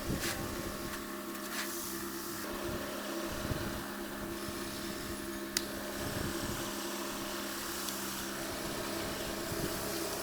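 Steady hum of a running machine, with a sharp click about five and a half seconds in.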